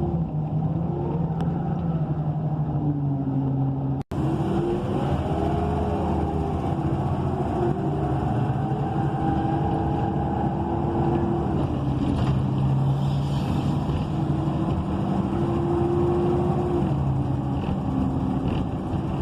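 The Cummins Westport ISL G natural-gas inline-six and Allison B300R automatic transmission of an ENC EZ Rider II transit bus under way, heard from inside the cabin. Whines rise and fall in pitch as the bus pulls away and shifts, over a steady low hum. The sound drops out for an instant about four seconds in.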